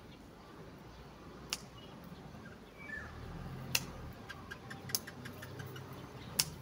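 A few sharp, irregular clicks or snaps, the loudest about a second and a half in, near four seconds, near five seconds and just before the end, with a brief bird chirp in between.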